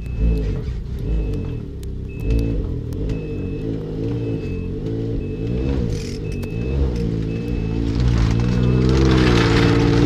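Ski-Doo Expedition SE 900 Turbo snowmobile's turbocharged three-cylinder four-stroke engine running and rising and falling in revs as the sled backs down the trailer ramps in reverse, with a short reverse-warning beep repeating at a steady pace. Near the end the engine revs up louder and the track churns through the snow.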